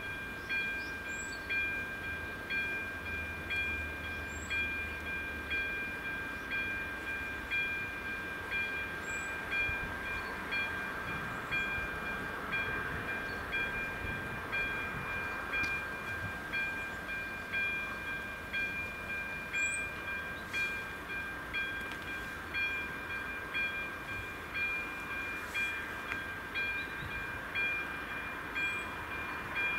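Level-crossing warning bell ringing: a steady electronic tone struck again a little faster than once a second. It is the crossing's active warning that a train is approaching.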